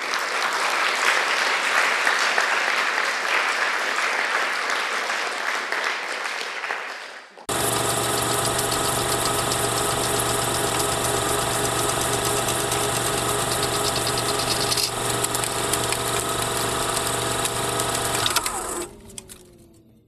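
Audience applauding for about seven seconds. Then an abrupt cut to the steady mechanical whirring clatter of a film projector running, which slows with a falling pitch and fades out near the end.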